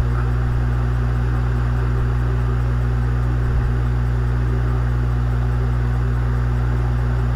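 A steady low hum made of several evenly spaced tones, with a single soft click about three and a half seconds in.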